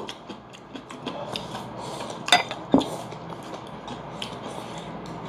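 Spoons and chopsticks clinking and scraping against soup bowls and metal rice bowls while eating, with two sharper clinks a little past the middle.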